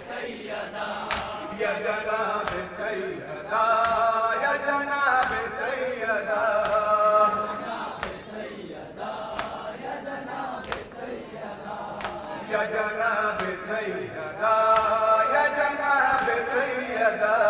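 Male voices chanting a nauha, an Urdu Muharram lament, in drawn-out phrases that swell louder twice. Sharp claps sound at irregular intervals.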